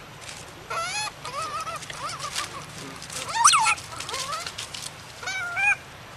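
Infant long-tailed macaque crying: a string of about five high, wavering calls, each under a second. The loudest, near the middle, rises sharply and falls away.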